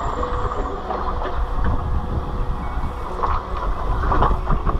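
Steady wind rumbling on the microphone, with a faint steady hum beneath it.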